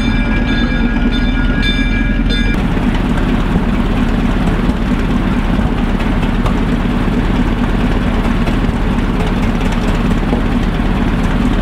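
Plymouth gasoline locomotive's engine running steadily, with a bell ringing in regular repeated strokes over it that stops abruptly about two and a half seconds in.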